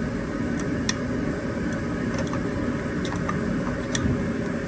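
Steady rumbling background noise, with a few short sharp clicks about a second in and again near the end.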